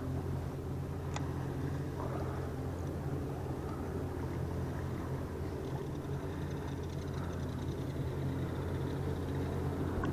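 Steady low hum of a boat motor running, with a sharp click about a second in and a faint high whine in the second half.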